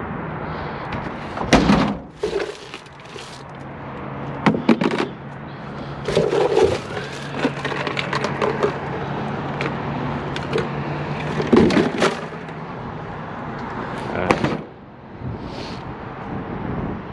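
Rummaging through trash in a dumpster: plastic and bags rattling and crinkling, broken by several sharp knocks and cracks. A steady low hum runs underneath and stops about two-thirds of the way through.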